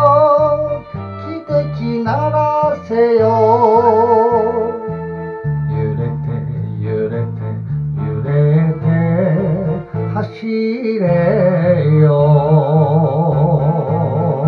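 Enka karaoke backing track playing its instrumental ending: a melody with vibrato over a bass line that steps from note to note.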